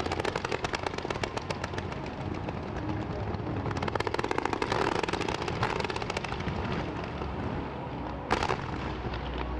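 Fireworks going off in fast volleys, many sharp reports a second. The reports thin out around two seconds in, come thick again about four seconds in, and there is one louder bang a little after eight seconds.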